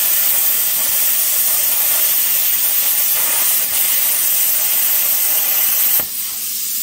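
Lotos LTP8000 plasma cutter cutting quarter-inch steel plate at 60 amps: a loud, steady hiss of the arc and compressed air. About six seconds in the arc stops with a click, and a quieter hiss carries on.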